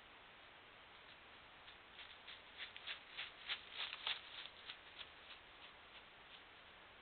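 A wolf's footsteps on frosty ground litter: a run of short rustling steps, about three a second, that grow louder toward the middle and then fade away.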